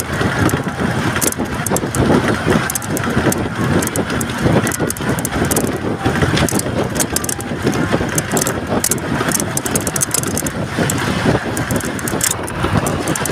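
Steady road and wind noise of a vehicle travelling at speed, heard from inside, with many short crackles mixed in.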